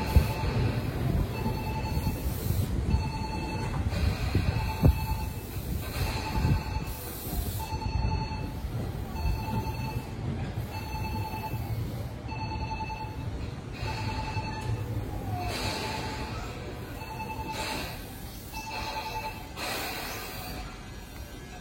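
Short electronic beep repeating about four times every three seconds and stopping near the end, over the low rumble of a train on a station platform, which slowly fades.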